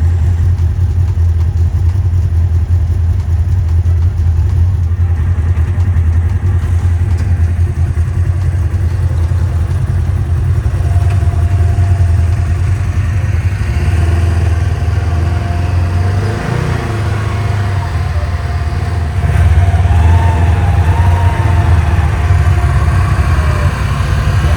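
ATV engine running steadily while riding, a loud low drone with little change in revs. A thin steady whine joins about halfway through.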